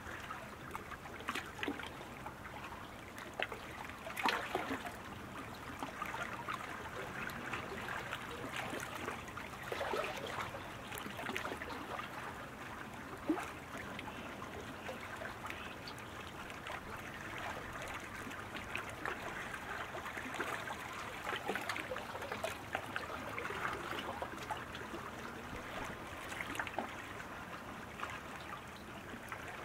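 Steady splashing and trickling of water, with many small irregular splashes.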